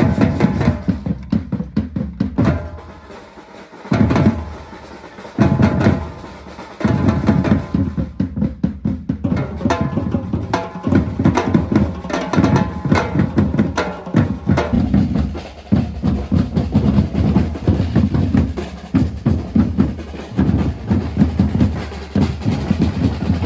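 A batucada drum ensemble playing, with deep bass drums carrying the rhythm. The playing drops out briefly twice in the first few seconds, then runs on and cuts off suddenly at the end.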